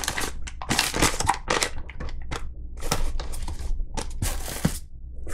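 Plastic packaging and a cardboard box rustling and crinkling as packaged items are lifted out by hand, in irregular bursts of crackle.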